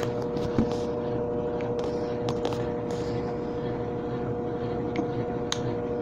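Brastemp 12 kg top-loading washing machine in its spin cycle: a steady motor hum over a low rumble from the spinning drum, with a few faint ticks.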